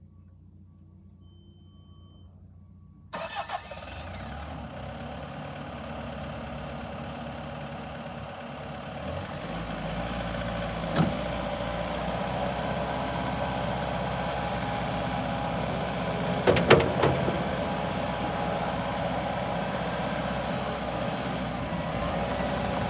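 Bobcat T740 skid steer's 74 hp Bobcat diesel engine cranked and started about three seconds in, after a short beep, then running steadily. Its speed and loudness rise around nine seconds in, with a sharp clunk near eleven seconds and a few more around sixteen to seventeen seconds.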